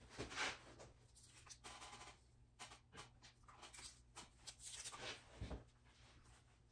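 Faint, irregular scratching and rustling strokes with small clicks, and one low thump about five and a half seconds in.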